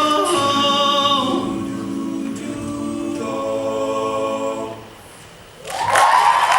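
An a cappella vocal group holds the song's final chord in several voice parts, then lets it fade away. After a short lull, the audience breaks into applause with a cheer about a second before the end.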